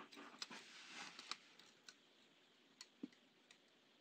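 Near silence with a few faint, short clicks and some light rustling from hands handling tweezers and fine wire on a small circuit board.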